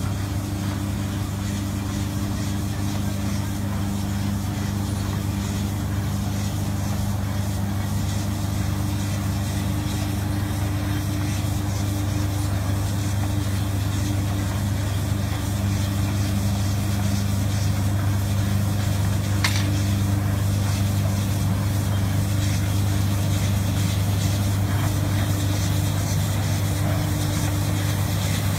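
Engine of a self-propelled automatic brick-making machine running steadily as it creeps along laying rows of green clay bricks, a low even hum. There is a single sharp click about two-thirds of the way in.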